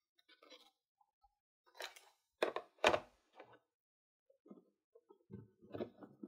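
Small plastic toy pieces being handled: a few sharp clicks and taps about two to three and a half seconds in, then softer, duller knocking and rustling toward the end.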